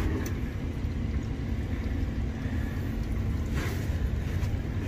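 A small 120-volt condensate pump running with a steady hum over a low rumble. Its vinyl drain tubing is clogged. Two light knocks come from handling, one near the start and one about three and a half seconds in.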